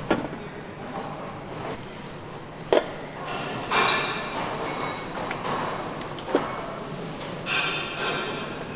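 Metal engine parts knocking and clinking as a cast intake manifold is handled and fitted onto a Mercedes-AMG 63 V8 engine, over a steady factory hum. There are a few sharp knocks and two short hisses.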